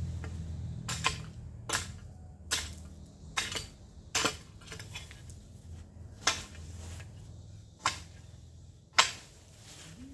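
A long-handled garden tool striking and scraping dry ground and cut weeds in about eight sharp strokes, mostly close to a second apart with a longer pause in the middle, over a low steady hum.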